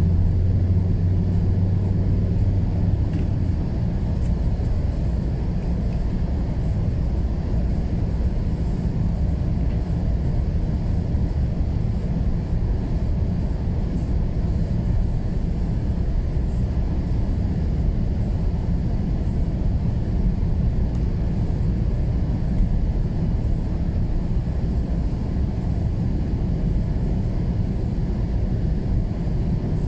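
Steady low rumble of a car driving, engine and tyres on a snow-covered road heard from inside the cabin, with a low hum in the first few seconds that then fades.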